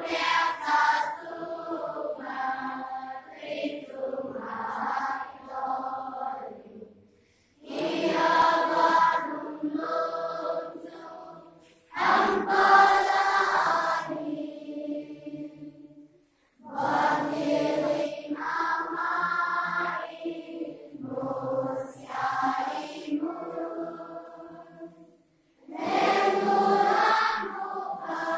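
A large group of children singing together without instruments, in long phrases broken by short pauses.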